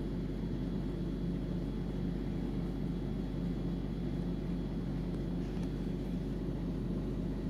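A steady low drone with a faint high whine, unchanging throughout; no speech or music is heard.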